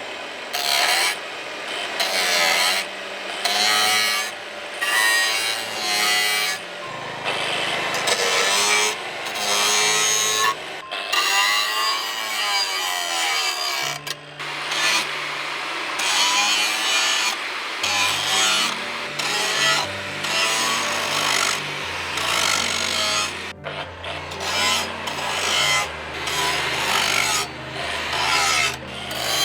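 Hand file rasping back and forth on a steel knife blank in steady strokes, about one a second.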